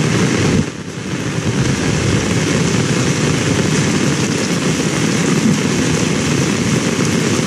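Very heavy rain pouring down, a dense, steady rush that dips briefly a little under a second in.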